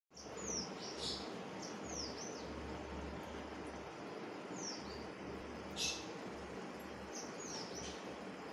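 Steady hum and hiss of aquarium aeration, with a small bird chirping now and then in short, high, falling notes. Two brief sharp ticks come about a second in and again a little before six seconds.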